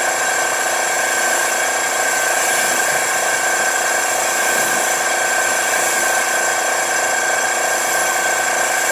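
EcoRinse machine, a compact low-water rinse pump, running steadily with a constant whine while its wand sprays water onto the car.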